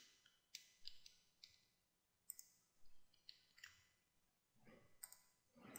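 About a dozen faint, irregular clicks from a computer mouse and keyboard, over near silence.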